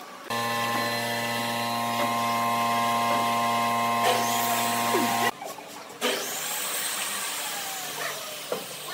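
A steady machine hum with an even pitch. It starts abruptly, cuts off suddenly about five seconds in, and is followed by a softer, noisier hum.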